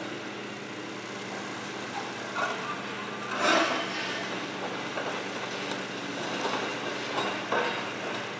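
Heavy demolition machinery running steadily, with scattered clanks and knocks. The loudest knock comes about three and a half seconds in.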